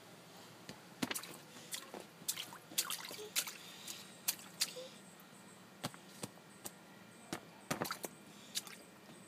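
Small splashes and drips of water as a toddler's hands pat and dabble in a shallow paddling pool: scattered short splats at irregular intervals, with quiet gaps between.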